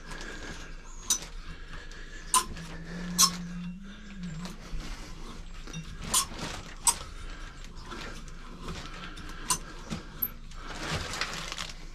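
Pipe cutter being turned around a thick aluminium bicycle fork steerer tube, giving irregular sharp clicks and creaks as its cutting wheel scores into the metal.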